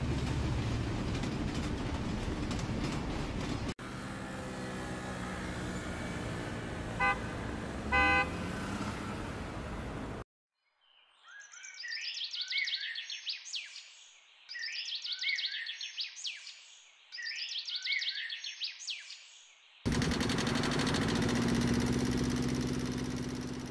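A train running on the rails, then a horn blasts twice briefly over steady traffic-like noise. After a short silence, birds call in three similar phrases of high, sliding cries. Near the end, a boat's engine runs with a steady low drone.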